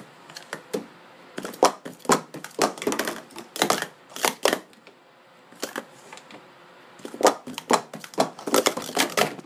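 Pro Series 2 sport stacking cups clacking as they are quickly upstacked into three 3-cup pyramids and downstacked on a stacking mat: rapid plastic-on-plastic clicks in several quick flurries with short pauses between them.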